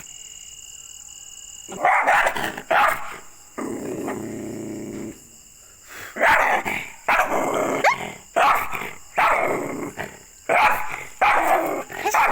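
A dog barking angrily at a person: after a short lull, two barks, a low growl for a second or so, then a fast run of loud barks.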